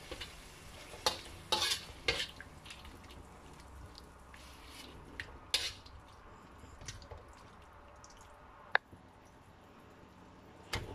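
Diced chicken sizzling in a wok, stirred with a metal slotted spatula that scrapes and clicks against the pan several times. Near the end a short clatter as a bowl of diced vegetables is tipped in.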